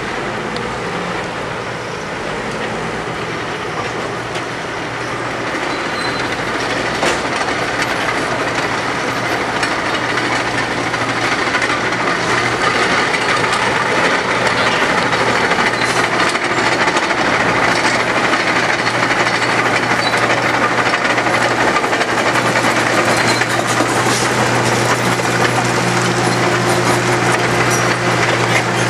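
Diesel construction machinery running steadily, with a low engine hum and scattered metallic clanks and knocks. The sound grows louder about six seconds in.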